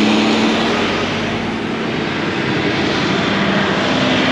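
A John Deere self-propelled forage harvester chopping standing corn, with the tractor and wagon running alongside it. Their engines make a steady, loud drone over a continuous hiss.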